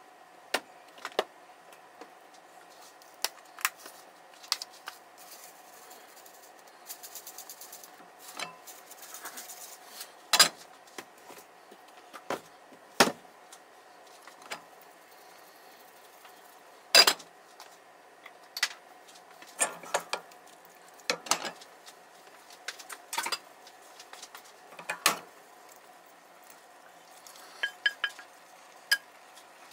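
Cookware clattering: irregular sharp knocks and clinks of utensils against metal pots and pans, over a steady faint hum. Near the end comes a quick run of ringing clinks as a small pan is tipped and scraped into a larger one.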